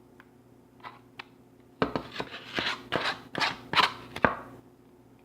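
A quick run of knocks and scraping clatters, like things being handled on a hard surface, over a steady low hum.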